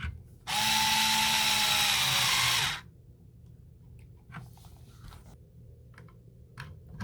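Electric drill driving in the screw that holds an outlet extender to a wall outlet, running steadily for about two seconds, then stopping; faint handling clicks follow.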